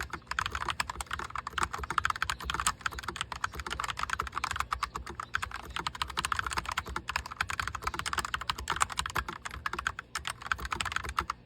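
Fast, continuous typing on a full-size typewriter-style mechanical keyboard with round keycaps: a dense run of irregular key clacks.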